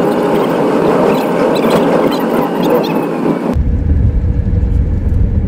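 Car driving on a highway, with steady road and tyre noise heard from inside the car. About three and a half seconds in, the sound cuts abruptly to a deeper, low rumble.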